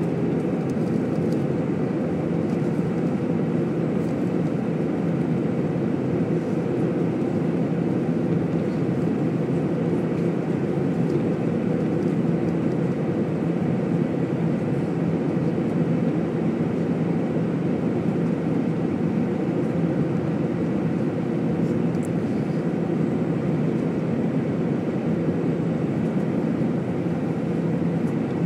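Cabin noise inside an Airbus A320 in descent: a steady low rumble of the engines and rushing air, even throughout.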